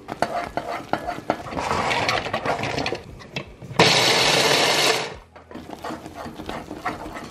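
Ninja electric food chopper running in short pulses, its blade rattling the contents around the plastic bowl, with the loudest steady burst lasting about a second just past the middle and cutting off sharply. Near the end, quieter scraping of a spatula stirring a thick mixture in a metal saucepan.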